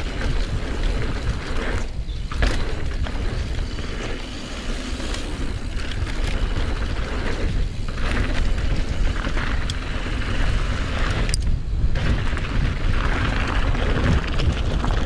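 Wind rushing over an action-camera microphone, with the rumble of mountain-bike tyres on a dirt flow trail and the rattle and clicks of the bike's chain and frame. The noise is steady and loud, and its hiss drops away briefly twice.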